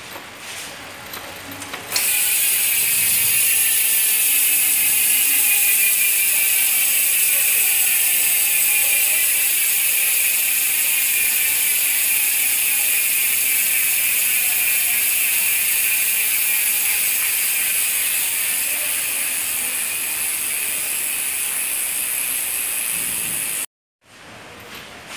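Koozer XM490 rear hub's freehub pawls buzzing loudly as the rear wheel freewheels, the clicks slowing steadily as the wheel coasts down; the hub has been modified for a louder, wasp-like buzz. The buzz starts about two seconds in and cuts off suddenly near the end.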